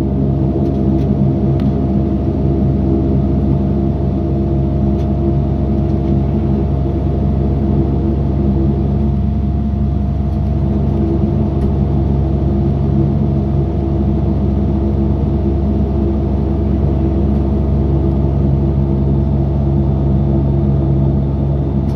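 Saab 340B Plus's GE CT7 turboprop engines and propellers running at steady taxi power, heard from inside the cabin. The result is a constant, even hum with several steady tones in it.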